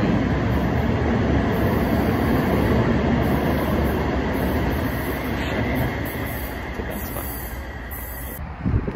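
O-Train light-rail train rumbling at the station platform, a steady low noise that fades over the last few seconds. Wind buffets the microphone right at the end.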